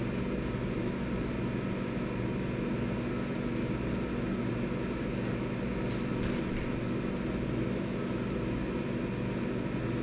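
GE built-in microwave oven running with its cover off: steady fan noise and mains hum from the powered transformer. The oven has a no-heat fault that was traced to the magnetron. A couple of faint clicks come about six seconds in.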